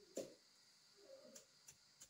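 One faint chop of a cleaver through dry stalks into a wooden chopping block, a short sharp knock just after the start. Faint, evenly spaced ticking runs underneath.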